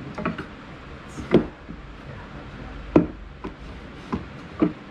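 Wooden fence boards knocking and clunking as a planter frame and its slats are handled: a series of about six sharp, uneven knocks, the loudest about a second and a half and three seconds in.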